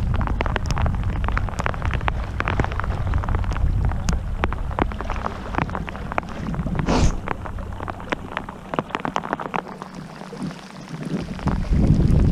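Rain falling as many scattered sharp ticks, over a low wind rumble on the microphone that drops away for a moment about nine seconds in.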